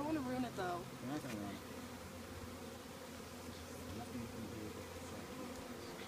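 Honeybees buzzing in a steady hum, with a few brief voices in the first second and a half.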